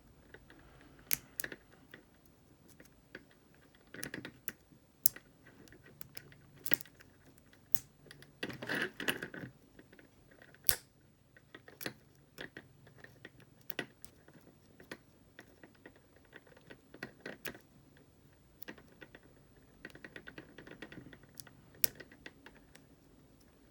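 Lock pick and tension wrench working the pin tumblers of a Brinks ProMax security padlock: irregular small metal clicks and scrapes, with a denser rattle of clicks about nine seconds in.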